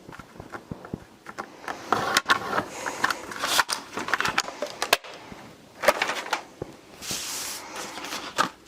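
Cardstock being scored and handled: a run of light clicks and taps with several short scraping swipes.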